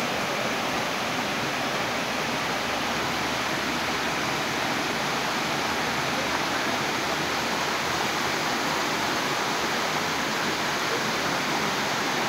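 Shallow stream running over rocks: a steady rushing of flowing water.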